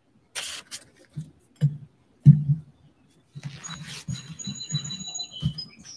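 A sheet of paper rustling as it is set down, then dull knocks and rustles of a body shifting on a yoga mat laid on a wooden deck, close to the microphone. Thin high whistled notes, like a bird's, sound in the second half.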